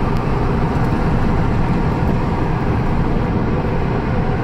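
Vehicle driving along at a steady pace: constant engine and road noise, mostly low rumble.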